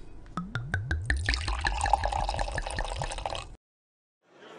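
Wine poured into a glass: a run of splashing drops, then a steady pour filling the glass, which cuts off suddenly about three and a half seconds in.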